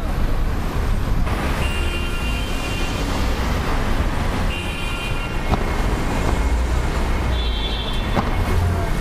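Street traffic: cars and taxis passing, a steady low rumble of engines and tyres, with three short high-pitched tones in the traffic noise.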